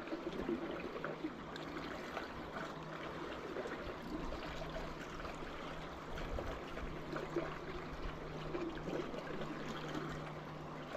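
Creek water running steadily with a trickling wash, and a faint steady low hum that comes and goes.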